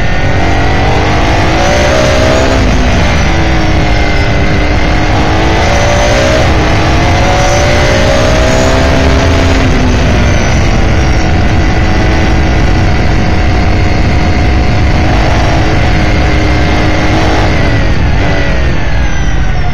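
S5000 open-wheeler's 5.0-litre Ford V8 at racing speed, heard on board. The engine note rises and falls several times as the car accelerates, upshifts and brakes for corners.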